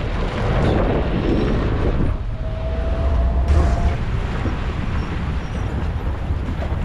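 Safari jeep engine running, a steady low rumble, with wind buffeting the microphone.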